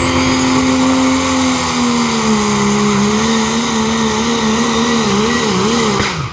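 Diesel pickup truck engine running hard under load while pulling a weight-transfer sled. Its note holds steady, then slowly sags and wavers up and down as the load builds, and drops off sharply near the end.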